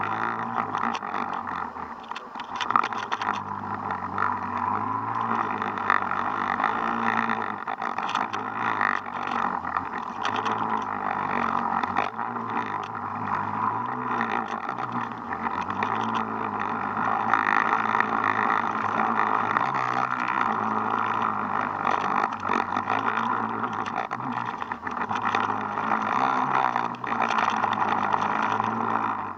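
Underwater sound heard through a camera housing: a steady rushing hiss of water, with a low, wavering drone of a boat engine carried through the water and scattered small clicks.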